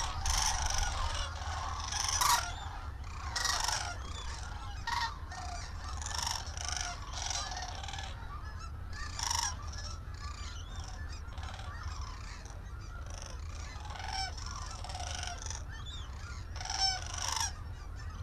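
A flock of sandhill cranes calling: many short, overlapping rattling bugle calls, loudest in the first few seconds and again near the end, over a steady low rumble.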